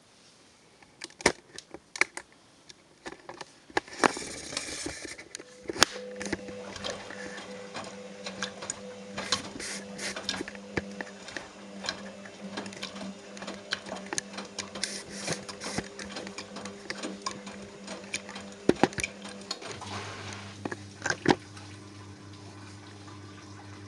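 Front-loading washing machine tumbling a wet load of plush toys: the drum motor hums steadily while the toys slosh and knock against the drum many times. About 20 seconds in the tumbling stops and a lower steady hum takes over, with water running into the machine.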